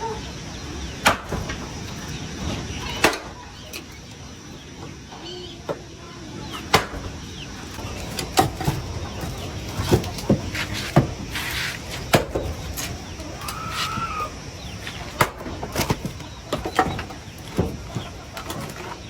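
Irregular sharp knocks and taps, with a chicken clucking now and then.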